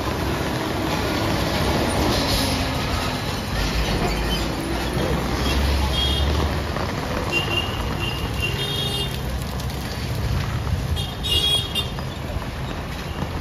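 Busy street traffic: motor scooters and motorcycles passing close by, with several short high-pitched horn beeps, the loudest cluster near the end.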